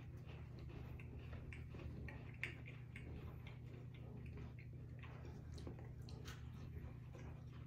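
Faint crunching and chewing of lemon shortbread cookies: soft irregular clicks, a few a second, over a low steady room hum.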